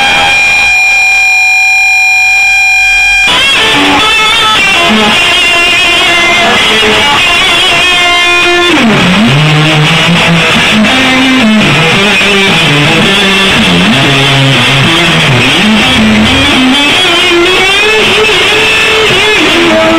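Live band playing loud electric guitar music, recorded close on a phone's microphone. It opens with a few seconds of held, steady guitar tones, then the full band comes in about three seconds in, with a low riff moving underneath from about eight seconds.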